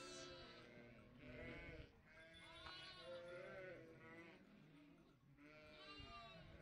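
A flock of ewes and young lambs bleating, with many overlapping calls one after another.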